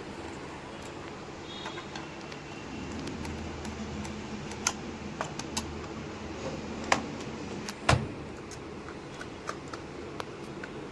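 Scattered light clicks and taps of small hard objects being handled, irregular and a little under a second apart, with a louder knock about eight seconds in, over a steady low hum.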